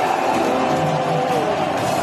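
A large stadium crowd of football supporters singing a chant together: a dense, unbroken wash of many voices carrying a sustained melody.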